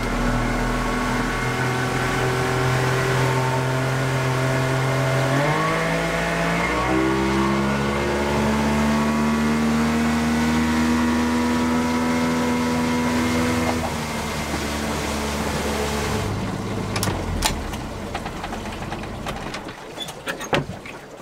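Motorboat engine running the boat across the lake. It speeds up about five to seven seconds in, holds a steady note, then throttles back and winds down over the last few seconds. A few sharp knocks come near the end.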